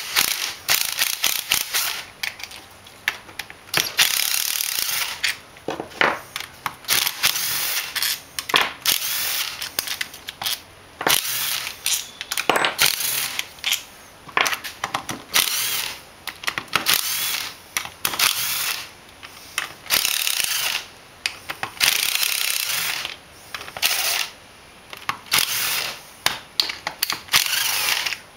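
Cordless power driver running in repeated short bursts as it backs out the case bolts of an MTD Vari-drive riding-mower transaxle, with small sharp clicks between the bursts.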